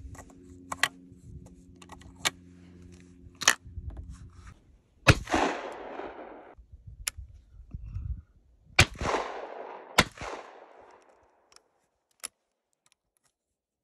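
Stoeger Uplander 12-gauge side-by-side shotgun: shells clicked into the barrels and the action snapped shut, then two shots about four seconds apart, each followed by a long echo. Afterwards the action clicks open, lifting the spent hulls on the extractors.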